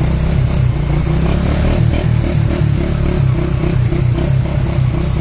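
A motor vehicle's engine running steadily, its low note pulsing unevenly.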